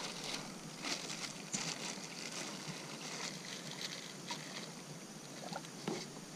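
Outdoor river ambience with scattered light rustles and clicks of fishing gear and bags being handled in a plastic kayak.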